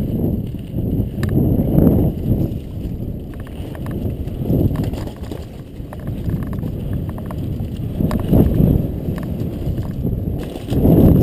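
Downhill mountain bike ride heard from a camera on the moving rider: wind rumbling on the microphone, rising and falling every second or two, with tyre noise and scattered rattling clicks from the bike over rough trail.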